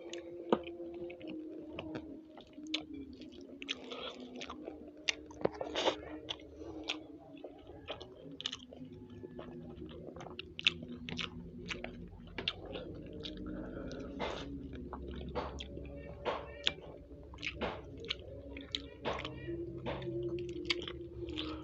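Close-up mouth sounds of a person eating: chewing and biting, with many short, sharp clicks and smacks throughout.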